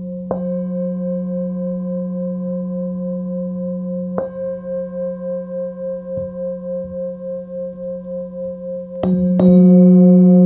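Hand-forged Nepalese singing bowl, 19.7 cm across and tuned to about 181 Hz (F#), struck and ringing with a deep hum and several higher overtones. It is struck again about four seconds in, with a slow steady pulsing in the ring, then twice in quick succession near the end, more loudly.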